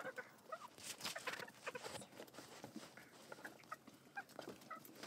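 Chickens pecking and scratching at food scraps in wood shavings: a scatter of soft taps and rustles, with short quiet clucks.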